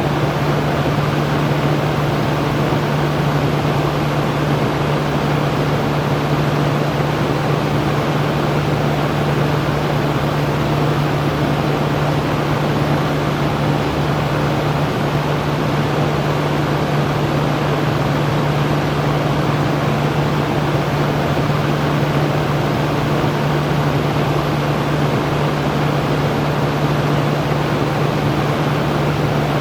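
Electric fan running steadily: an even rush of moving air with a steady low hum underneath.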